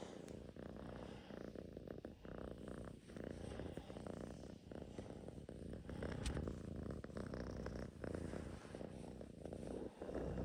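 Russian Blue cat purring steadily, a low rapid rumble that swells and eases in waves.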